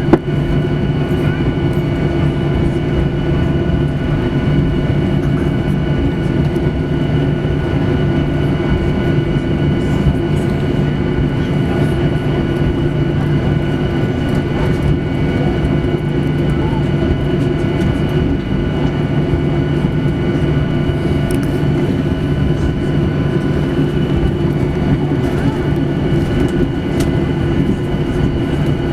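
Cabin noise of a Boeing 737-800 taxiing after landing: a steady hum with several steady whining tones from its CFM56-7B engines at idle and the cabin air system.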